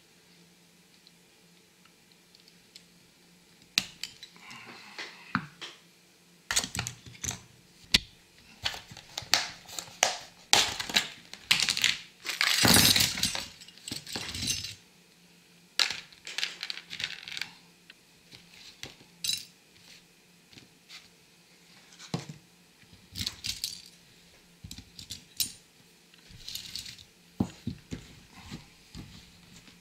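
Die-cast metal toy car bodies and small parts clinking and knocking against each other and the table as they are handled and set down, in scattered taps and clicks. Near the middle comes a longer, louder rustle of paper towel rubbing over a part.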